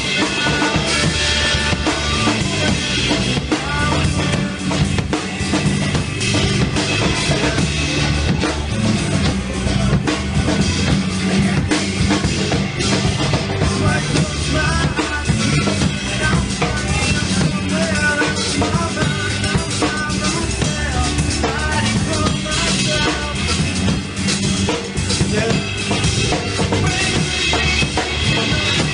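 Rock band playing an instrumental passage, led by a drum kit with no toms: kick, snare and rimshots keeping a steady beat under the other instruments.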